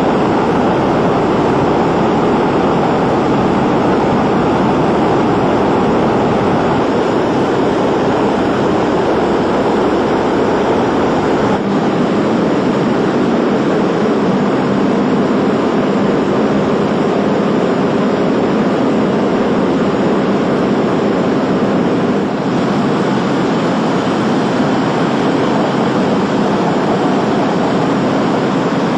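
Propeller aircraft engines droning steadily in flight, a dense continuous noise with the lowest bass dropping away about twelve seconds in.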